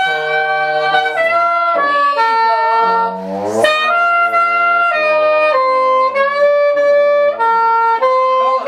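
Trombone playing a melodic jazz line with other wind instruments sounding along, with a rising slide glide about three seconds in.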